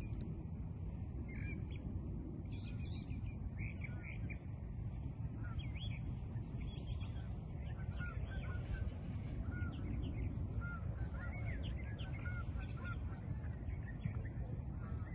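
Birds chirping and calling in many short, quick notes over a steady low rumble.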